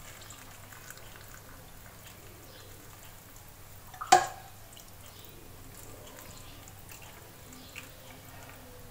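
Thick milk being ladled from a steel pot and poured over fried bread slices in a glass bowl, with faint dripping. About four seconds in, the steel ladle gives one sharp clink as it goes back into the pot.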